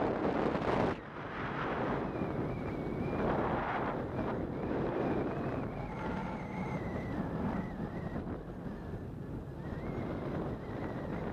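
Wind rushing and buffeting over a paragliding camera's microphone in flight, loudest in a gust at the very start. A faint wavering high whistle runs beneath it.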